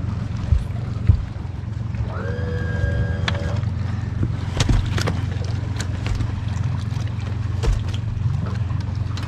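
Boat motor idling with a steady low hum, with scattered sharp clicks and knocks from trotline snap clips and hooks being handled. A short steady tone sounds for about a second, a couple of seconds in.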